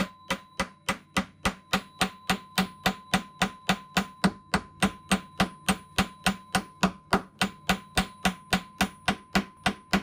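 Hammer striking a hand-forged half-inch steel rivet in quick, even blows, about four a second, peening its head over the rove to close it.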